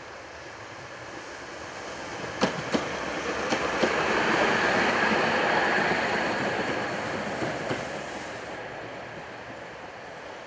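A Tatra T6A2 tram passing on the track: the rolling noise swells to a peak about halfway and then fades, with a few sharp clicks of the wheels over rail joints, mostly in pairs, around the build-up.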